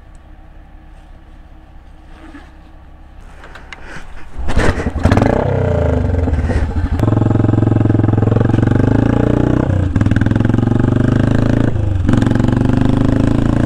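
Motorcycle engine jumps up loud about four seconds in, then pulls away and accelerates through the gears. Its pitch climbs and drops back at each shift, three times.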